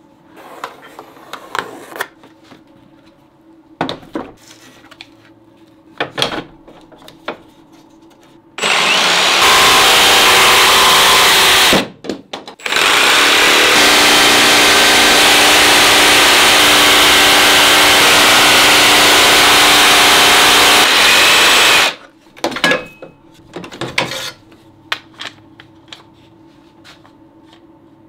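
Jigsaw cutting a curved opening through a wooden board, in two loud runs: about three seconds, a brief stop, then about nine seconds. Scattered knocks and clicks of the board and clamps being handled come before and after the cutting.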